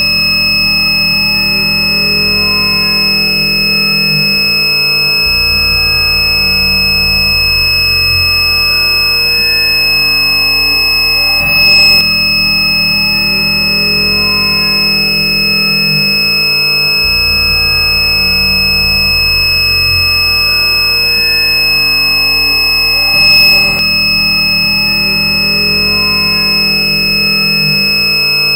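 Continuous high-pitched electronic beep tone, held steady without a break, over a lower background layer that repeats about every twelve seconds. Two short loud clicks cut in, one about twelve seconds in and one about twenty-three seconds in.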